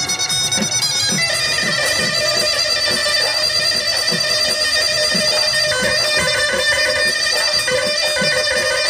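Assamese Bihu dance music: a reedy wind instrument plays a held, wavering melody over a steady drum beat of about two beats a second.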